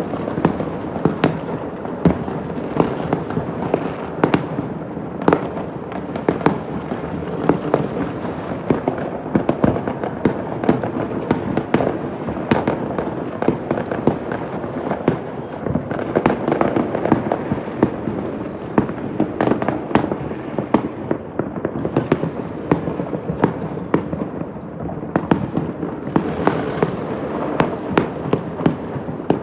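Fireworks going off all over a city at once: a constant crackle and rumble of distant bursts, with many sharper bangs standing out every second or so, heard from high up through an open window.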